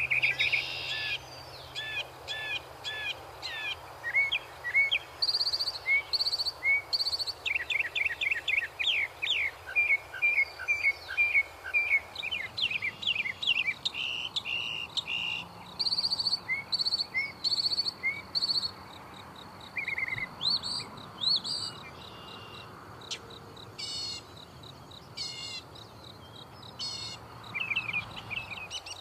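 Northern mockingbird singing a long, varied song: a string of different phrases, with each note or phrase repeated several times before it switches to the next.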